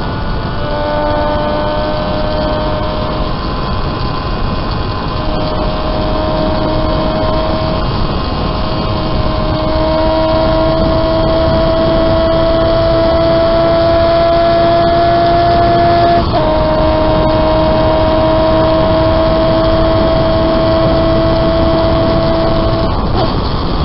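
Home-built three-cylinder engine of a 195cc racing motorcycle, heard from on board and running hard. Its high note climbs slowly and breaks off twice for a couple of seconds. The pitch drops a step about two-thirds of the way through, then the note is shut off near the end. Rushing wind noise sits under it throughout.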